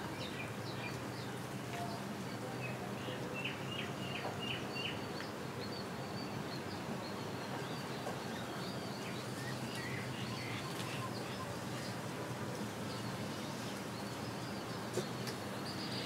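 Quiet room ambience: a steady background hiss with faint high bird chirps, a quick run of short chirps about three to five seconds in.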